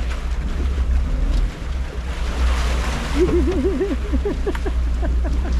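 Steady low rumble of wind and water around boats on the water, with a brief rush of noise about two seconds in and a short wavering, warbling pitched sound a little after three seconds.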